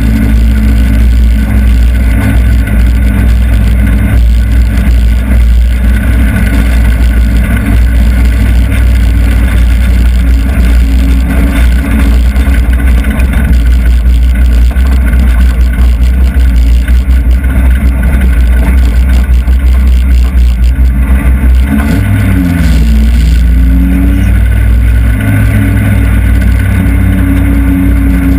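Hobby stock race car's engine heard from inside the cockpit, very loud and running at fairly steady, moderate revs. About three-quarters of the way through, the revs drop and then climb back up.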